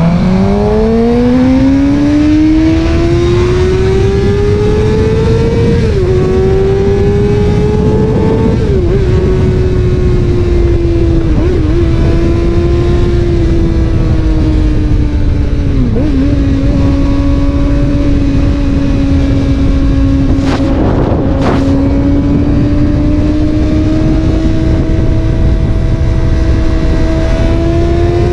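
Suzuki GSX-R600 inline-four engine through an M4 slip-on exhaust accelerating. It rises in pitch with upshifts about six and eight seconds in, then cruises at a nearly steady pitch with brief dips and a slow climb near the end. The engine is still in break-in and is held well short of full throttle.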